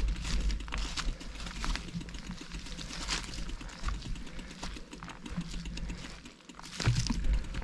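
Mountain bike ridden over a rough dirt trail: irregular clicks, knocks and rattles from the bike and tyres over bumps, over a steady low rumble.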